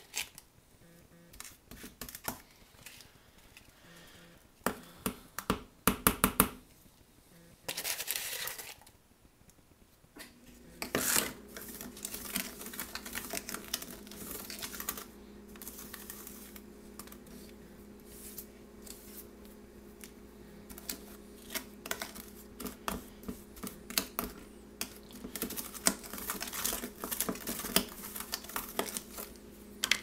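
Metal spoon scraping and tapping against a plastic tub and a plastic ice cube tray in irregular clicks, as a damp powder mixture is scooped and mashed into the tray's cells. About a third of the way in, a steady low hum starts and keeps going underneath.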